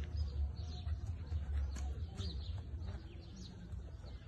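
Small birds chirping, many short falling chirps repeated throughout, over a low steady rumble.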